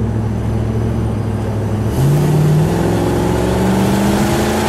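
The 1968 Imperial Crown's 440 cubic-inch V8 pulling the car along, heard from inside the car. About two seconds in, the engine note jumps up and then rises steadily as it accelerates.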